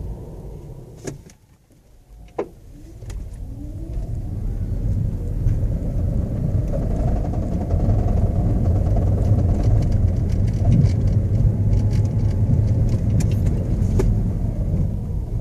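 Cabin sound of a 2010 Toyota Prius hybrid in stop-and-start driving. It goes almost quiet at a standstill, with two sharp clicks. It then pulls away with a short rising whine, and the drivetrain and road noise build over a few seconds into a steady low rumble.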